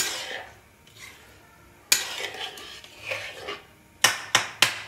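Metal spatula scraping and knocking against a metal kadai while stirring watery khichdi. Sharp clinks come at the start, about two seconds in, and three in quick succession near the end.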